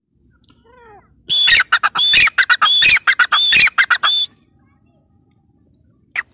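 Gray francolin calling: a loud run of rapid, shrill repeated notes lasting about three seconds, then two short single calls near the end.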